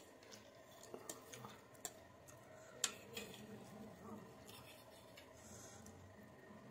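Metal fork clinking and scraping against a plate as noodles are gathered up: a few faint clicks, the sharpest about three seconds in.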